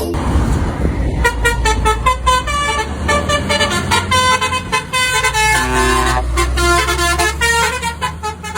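Truck horn sounding a rapid run of short notes at changing pitches, like a tune, over the steady low rumble of the engine. It is preceded by a hiss in the first second.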